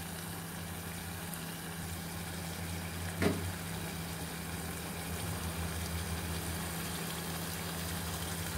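A steady low mechanical hum with an even hiss, and a single sharp click about three seconds in.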